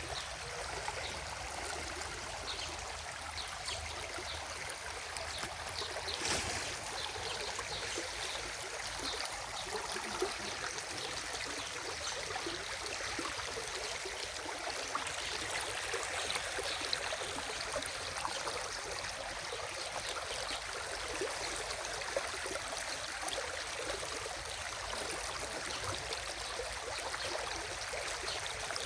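Stream water running and trickling over stones, a steady babbling flow. There is one brief sharp noise about six seconds in.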